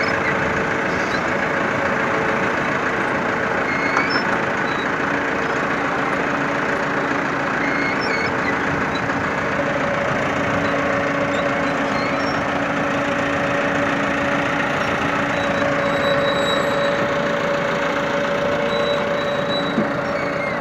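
Massey Ferguson 385 tractor's four-cylinder diesel engine running steadily under load while pulling a potato planter through the field.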